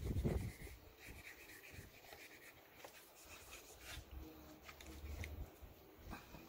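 Knife cutting and scraping through the soft cartilage at the base of an elephant fish's dorsal spine, heard as faint, scattered scrapes and clicks. A brief louder low sound comes at the very start.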